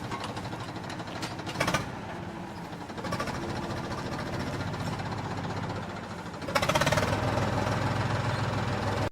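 A small motor running with a fast, steady mechanical rattle, growing louder about two-thirds of the way through.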